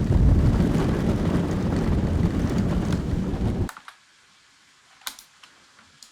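Onboard recording of an amusement-ride car running along its track: dense, loud rumble and rattle of the wheels. It cuts off suddenly about three and a half seconds in, and a few faint clicks follow.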